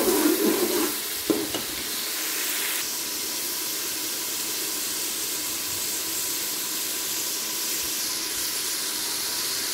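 Onion and spice masala sizzling in oil in a pressure cooker pot, with a metal spoon stirring and scraping for about the first second and a single knock just after. The sizzle then goes on steadily.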